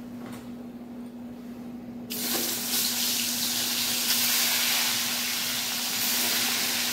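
Pieces of bhola fish lowered into hot oil in a pan, hissing loudly as frying starts suddenly about two seconds in and going on steadily. A steady low hum runs underneath.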